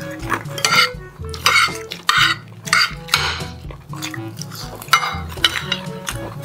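Metal forks and spoons scraping and clinking against plates in a run of short strokes while people eat, over background music.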